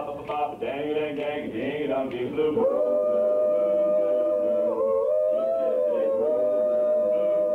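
Male vocal group singing a cappella in 1950s style: quick rhythmic syllables for about the first two and a half seconds, then long held chords that change pitch a few times.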